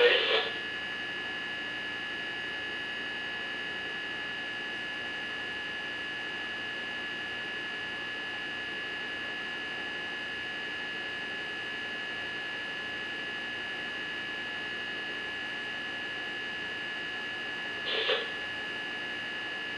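A steady electrical hum with a thin high whine on top, unchanging in level and pitch. A brief burst of sound breaks in once, near the end.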